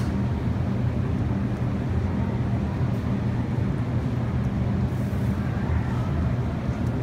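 Steady low hum of a supermarket's refrigerated produce cases and ventilation, a constant drone with no change in pitch or level.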